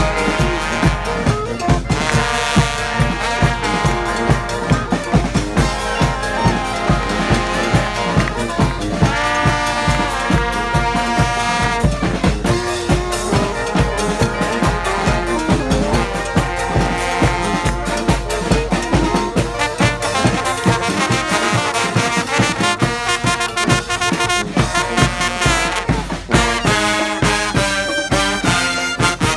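Street marching band of trombones, trumpets and saxophones playing a brassy tune over a steady drum beat. The deep bass thins out about twenty seconds in while the horns play on.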